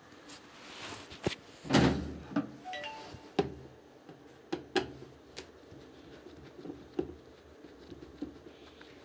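Knocks, clicks and clunks of hard objects being handled, with a heavier thump about two seconds in and a few sharper clicks over the next few seconds.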